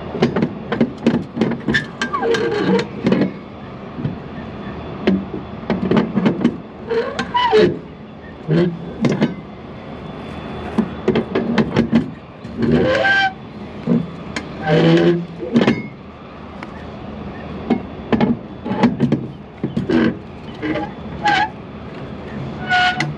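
Flatbed trailer strap winch being cranked tight with a winch bar: a run of irregular, sharp metal clicks and clunks from the ratchet and bar as the cargo strap is drawn taut.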